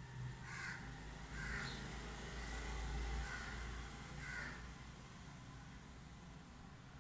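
Crow cawing, four short calls spread over the first few seconds, over a faint low hum.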